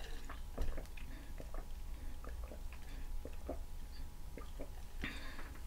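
Quiet drinking through a straw from an insulated tumbler: soft sips, small mouth and swallowing clicks, and a short airy sound near the end.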